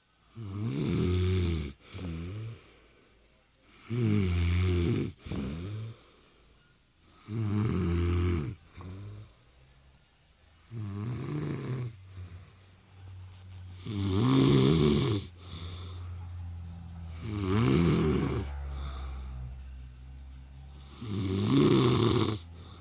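A woman snoring in her sleep: seven loud snores at a slow, even pace, about every three and a half seconds, each lasting about a second, several followed by a softer breath.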